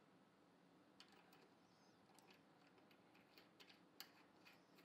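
Near silence, with a few faint clicks of a hand handling the metal cogs of a bicycle cassette on its freehub. The clearest clicks come about a second in and near the end.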